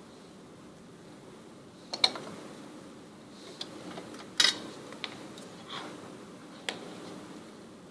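Scattered sharp clicks and taps of small hand tools and electronic parts being handled on a workbench while through-hole components are soldered onto a kit board, over a faint steady hiss. The loudest clicks come about two seconds in and again midway through.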